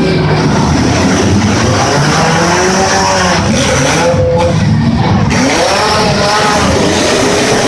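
Demolition derby cars' engines revving hard over a loud, steady din, their pitch rising and falling again and again.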